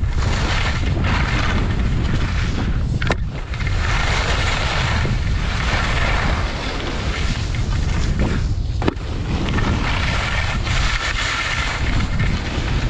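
Wind buffeting the microphone of a skier's GoPro while descending at speed, over the hiss and scrape of skis on packed snow that swells and fades with each turn. Two brief knocks, about three and nine seconds in.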